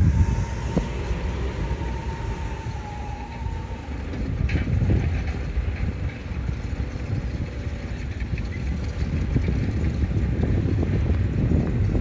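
Diesel engine of a Mitsubishi motor grader running steadily as the machine travels and grades a dirt field, heard as a low, unbroken drone.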